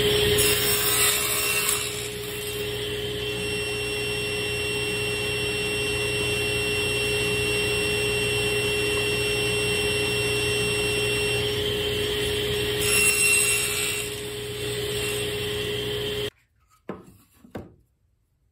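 Table saw running with a steady hum, cutting small wooden pieces held in a jig on a crosscut sled to square their ends. The sound grows louder twice, near the start and about 13 seconds in, as the blade cuts through the wood. Near the end the saw sound stops abruptly, followed by a few light wooden knocks as the pieces are handled.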